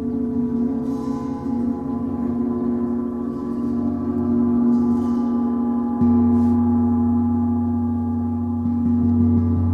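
Gongs, a Bifrost titanium gong and a water gong, ringing in a steady, dense hum of many overlapping tones. About six seconds in, a fresh stroke suddenly brings up a deep low hum under the ringing.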